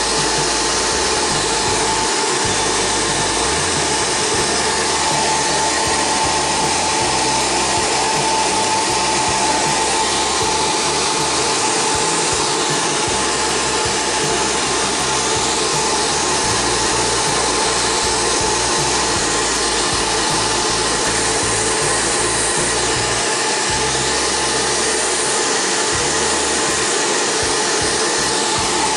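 Hair dryer running steadily on one setting: an even rush of blown air with a steady whine over it, heating vinyl wrap so it softens and molds to the phone's edges.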